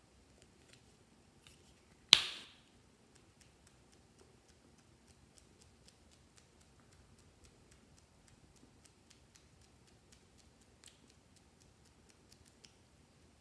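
One sharp click about two seconds in, then a long run of light, irregular ticks as a highlighter's felt tip dabs small dots onto a sheet of clear glue on plastic film.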